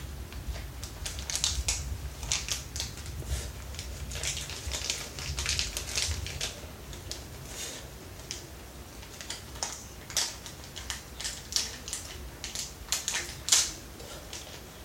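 Plastic packaging crinkling and crackling in the hands, with many irregular sharp clicks and snaps, as a Beyblade booster part is unwrapped and handled.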